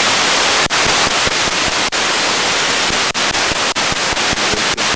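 Analog TV receiver hissing with loud static ('snow') once the analog transmitter is switched off and no signal is left. A steady hiss broken by brief crackling dropouts that come more often after about three seconds in.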